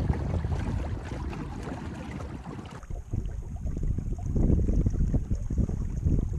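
Wind buffeting the microphone aboard a small sailing skiff, a gusting low rumble, with water washing along the hull. The sound changes abruptly about three seconds in, after which a faint steady high tone runs under it.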